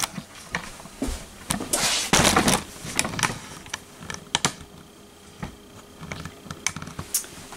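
Irregular clicks and knocks of a camera being handled and repositioned, with a short, louder rustle about two seconds in.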